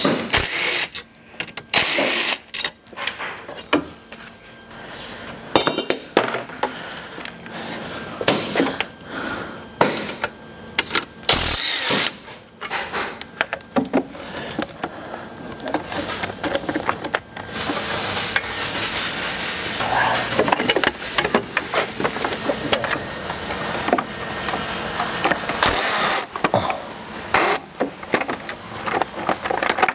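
Irregular clicks, knocks and rattles of plastic and metal parts being worked loose from a car's plastic front-end carrier with hand and cordless tools. The noise grows denser, with steady scraping and rattling, from a little past halfway until near the end.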